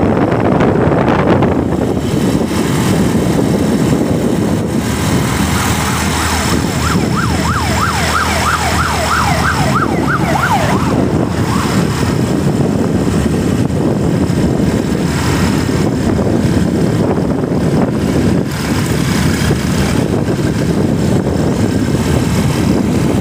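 Steady wind rush and road noise from riding on a motorcycle. About seven seconds in, a quick siren-like electronic warble rises and falls about three times a second for some four seconds, then stops.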